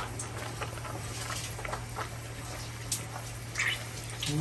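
Pork skin crackling and popping as it deep-fries and puffs into chicharron in hot oil: a steady patter of small, irregular pops and sizzle.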